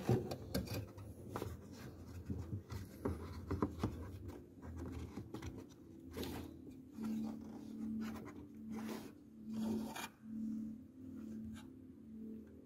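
Hands working at the back of a car headlight, plastic and wiring rubbing, scraping and clicking in a run of small sharp clicks, busiest in the first few seconds. A faint low tone pulses evenly in the second half.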